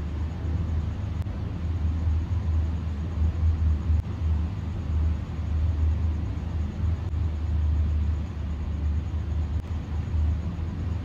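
Steady low rumble that wavers in level throughout, with nothing higher-pitched standing out.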